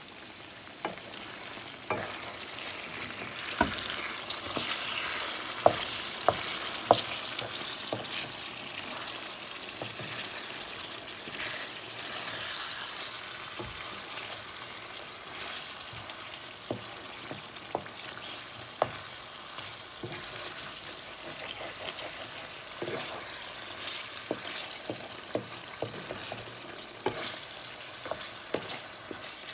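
Chicken pieces sizzling in oil and curry sauce in a frying pan, a steady hiss that is louder in the first few seconds. A spatula stirring the pieces knocks and scrapes against the pan again and again, with the sharpest knocks a few seconds in.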